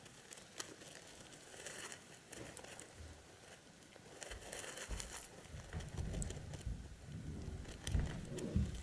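Wood-shaving nest bedding rustling and crackling as hamster pups shift and climb over one another, with low dull bumps from about halfway through.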